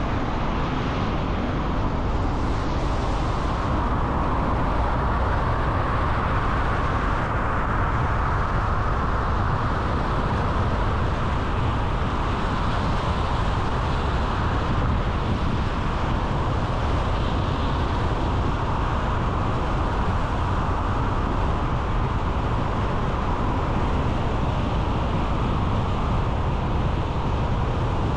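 A car driving at a steady speed: continuous road and tyre noise with engine hum, unchanging throughout.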